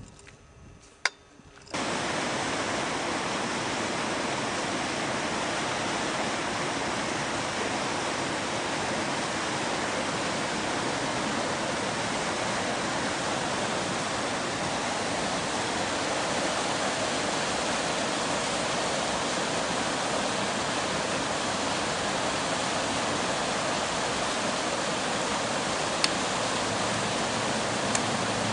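Rushing water running steadily, starting abruptly about two seconds in. There is a sharp click about a second in and a couple of faint clicks near the end.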